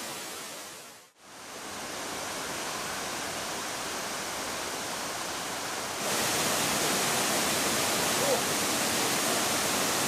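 Steady rushing of a waterfall pouring into its plunge pool. It drops out for a moment about a second in and becomes louder about six seconds in.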